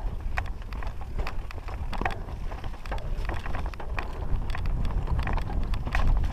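Mountain bike descending rocky singletrack: a steady stream of irregular clicks and clatters from the tyres striking loose stones and the bike rattling over them, with wind rumbling on the microphone throughout.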